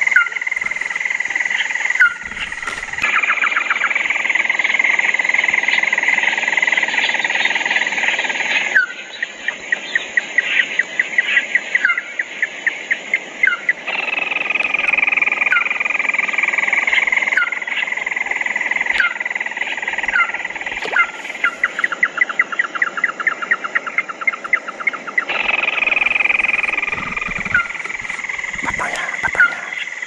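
Night-time rice-paddy chorus of insects and frogs, with a steady high buzz. A short chirping call repeats every second or two, and stretches of fast rattling trills come in twice.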